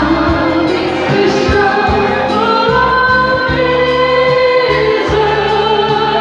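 Women singing a slow song together into handheld microphones, holding long notes over an amplified musical backing with a steady bass.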